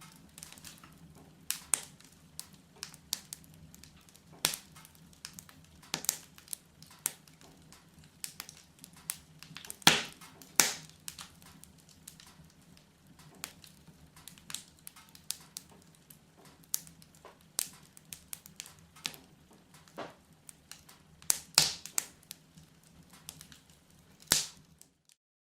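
Wood fire crackling, with irregular sharp pops and snaps, the loudest about ten seconds in and again a little past twenty seconds; the sound cuts off suddenly just before the end.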